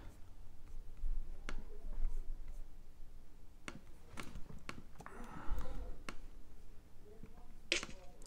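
Scattered clicks and taps from working a computer, a few seconds apart, with a louder click near the end.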